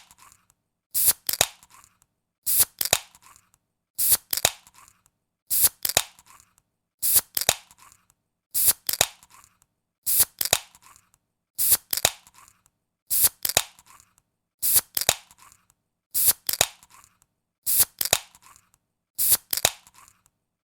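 Ring-pull soda can being opened over and over, about every second and a half: each time a sharp crack of the tab, a second click, then a short hiss of escaping gas that fades out.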